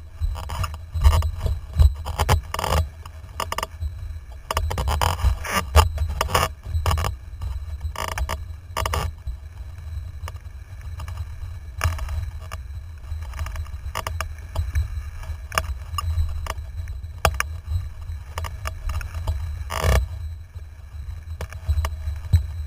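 A windsurfer under sail, heard from a camera mounted on the rig: a steady wind rumble on the microphone, with water slapping against the board and frequent sharp knocks and rattles from the rig.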